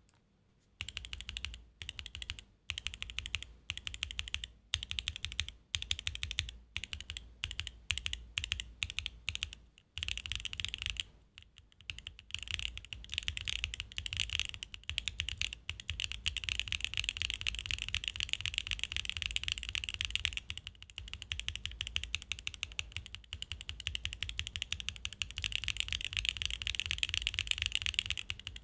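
Mechanical keyboard fitted with BSUN Snow Diane switches being typed on. For the first ten seconds or so the keystrokes come in short separate runs; after a brief pause about eleven seconds in, the typing becomes fast and continuous.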